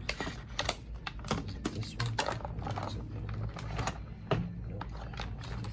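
Irregular light clicks and taps of small hard objects being handled, several a second in uneven clusters, over a steady low hum.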